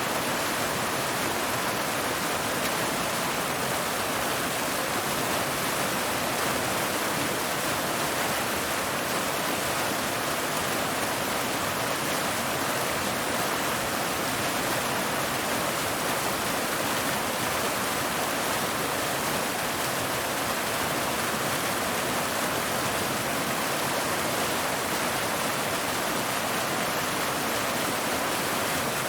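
Waterfall water falling and splashing over rocks in a steady, unbroken rush.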